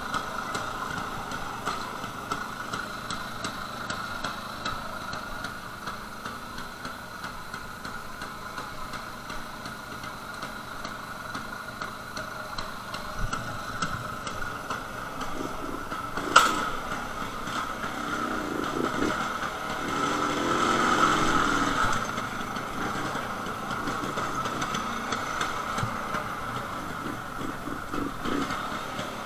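Jawa 250/353 single-cylinder two-stroke engine running, heard from the rider's helmet. A single sharp click sounds a little past halfway, and soon after the engine note briefly rises and falls.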